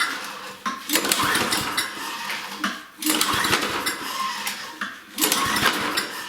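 6.5 hp Tecumseh mower engine being cranked with its recoil pull-starter, about three pulls a couple of seconds apart, each a short burst of whirring and clatter, without the engine starting.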